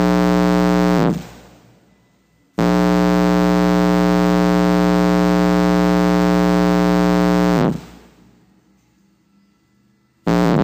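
Ascendant Audio 12-inch Havoc subwoofer wired straight to a 110 V wall socket, blaring a harsh, very loud 60 Hz mains buzz as household AC drives its voice coil to destruction. The buzz stops about a second in, comes back for about five seconds, then starts again near the end.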